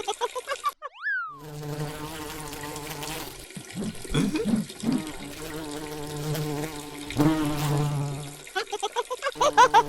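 A steady, low, insect-like buzz, broken by a quick rising-then-falling whistle about a second in and a cluster of short wavering sounds around four to five seconds.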